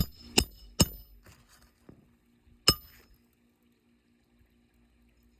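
Four ringing metal-on-metal hammer strikes: three quick blows, then one more a couple of seconds later, a hammer knocking on a roof snake to drive nails in under shingles.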